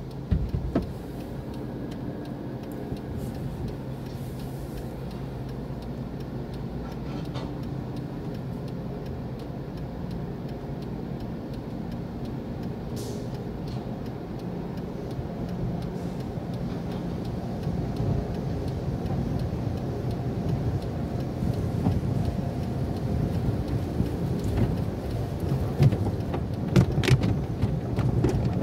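Belanger tunnel car wash heard from inside the car: water spraying and splashing on the windshield and body over a steady low hum. It grows louder and rougher in the second half as the cloth washing curtains sweep over the car, with a few knocks near the end.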